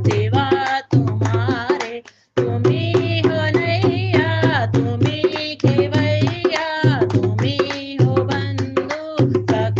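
Devotional bhajan music: tabla drumming under a wavering melodic line, with a brief break about two seconds in.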